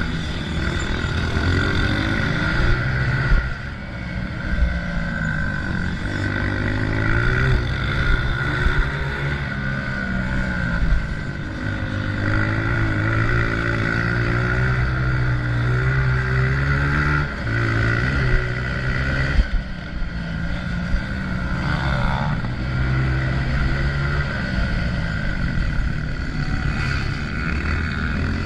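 Honda CRF125F dirt bike's 125 cc four-stroke single-cylinder engine running under throttle, its pitch repeatedly rising and falling as the revs climb and drop, with a few brief dips in loudness.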